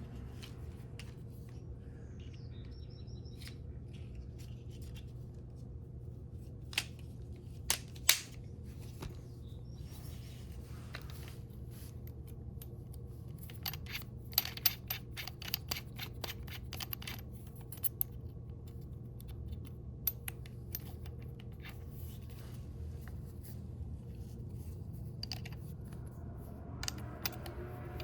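Scattered sharp clicks and light metallic taps, thickest in a cluster around the middle: a drill chuck being tightened with its chuck key and small tools handled at the bench.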